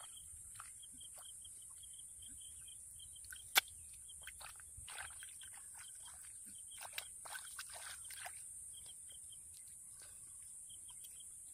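Bare hands squelching and slapping wet mud in short, irregular bursts, busiest in the second half, with one sharp click about three and a half seconds in. Behind it, a steady high hiss and a high chirping call repeated in quick series.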